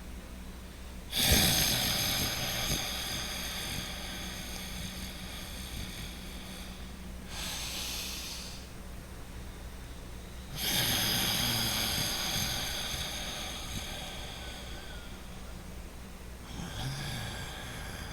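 Loud, deliberate breathing through the nose, done to relax the muscles: a long, airy breath about a second in that fades slowly, a short breath, then another long fading breath and a short one near the end.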